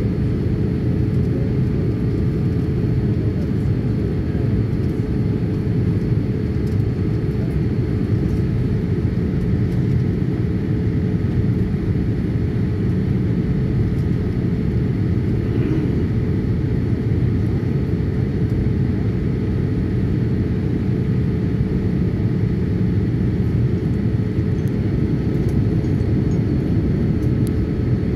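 Steady cabin noise inside a Boeing 787 Dreamliner on approach to landing: a constant low roar of engines and airflow, with a few faint steady tones above it.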